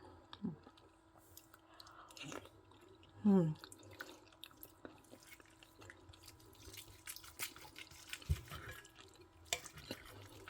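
A person chewing soft braised pork knuckle up close to the microphone, with many small mouth clicks and a short falling 'mmm' about three seconds in.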